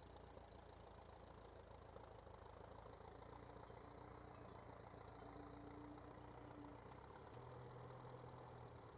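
Little Grey Fergie (Ferguson TE20) tractor engine running steadily, heard faintly, its note rising slightly about seven seconds in.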